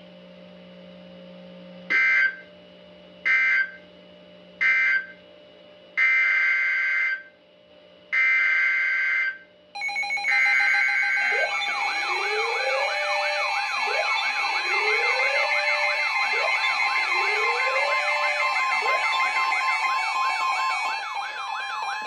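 NOAA Weather Radio SAME data bursts: three short end-of-message bursts, then three longer header bursts announcing a new alert. A shelf of weather radios then go off together, their various alarm sirens and chirps sweeping over the steady warning alarm tone. The alert that follows is a tornado warning.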